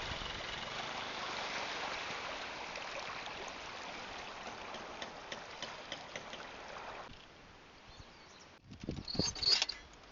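Small waves washing on the shore with a trickling hiss that slowly fades, cutting off suddenly about seven seconds in. Near the end, a few sharp clicks and knocks over a quiet background.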